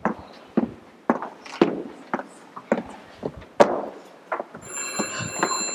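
High-heeled shoes clicking on a hard stage floor as a woman walks, about two steps a second. Near the end a steady electronic telephone ring starts.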